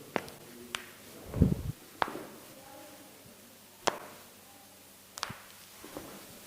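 A series of about six sharp clicks and snaps at irregular intervals, with a single low thump about a second and a half in.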